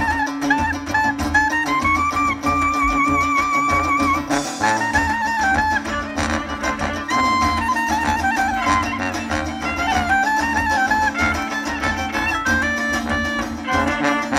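A live folk band playing a tune. A fiddle carries the melody, with a long held note with vibrato a few seconds in, over a steady beat from drums and a brass bass.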